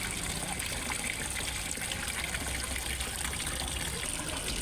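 Water running steadily into a fish pond, a continuous splashing and trickling like a small waterfall.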